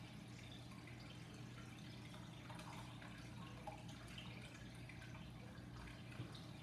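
Faint wet mouth sounds of sipping and swallowing juice from a cup: small scattered clicks and lip smacks over a steady low hum.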